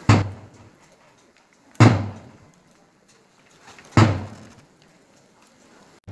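Three loud, booming thuds about two seconds apart, each with a deep low thump and a short fading tail.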